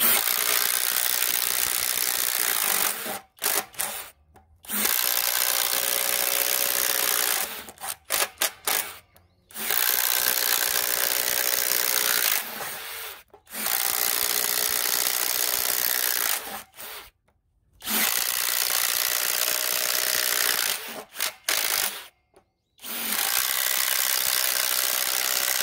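Kobalt XTR 24V brushless impact driver boring six holes one after another through a wooden board with a 1-inch Irwin Speed Bore spade bit, running hard under load. There are six runs of about three seconds each, with brief stops between holes.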